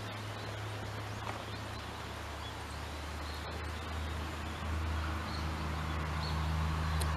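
Steady low hum of an engine running at a distance, growing louder in the second half as a higher, steady engine note joins it.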